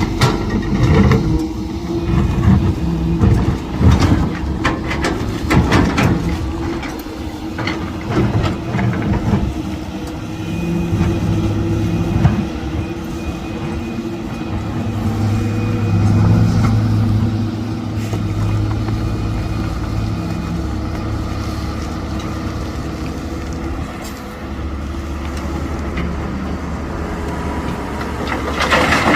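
Heavy construction machine's engine running steadily, with a series of knocks and clanks during the first nine seconds or so. The engine note swells around the middle and then settles.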